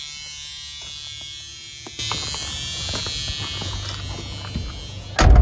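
A steady low buzz with handling rustle from about two seconds in, then a heavy thud near the end as the Ford Pinto wagon's door is shut.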